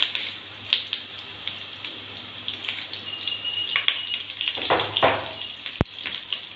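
Fresh curry leaves sizzling and spluttering in hot coconut oil with mustard and fenugreek seeds: a steady frying hiss with small crackles and pops, briefly louder about five seconds in. There is one sharp click near the end.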